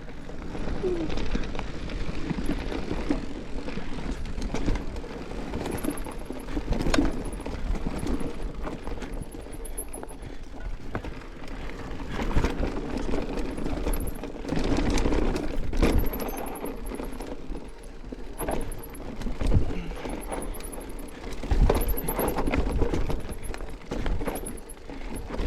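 Mountain bike riding down a rough dirt trail: tyres rumbling over the ground, with frequent knocks and rattles from the bike over bumps.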